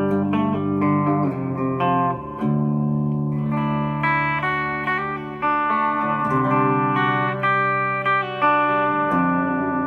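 Electric guitar (a G&L Fallout) played through a Boss Katana 50 W combo amp fitted with an Eminence Cannabis Rex speaker, the amp's EQ at noon. Chords are struck and left to ring, changing every second or so.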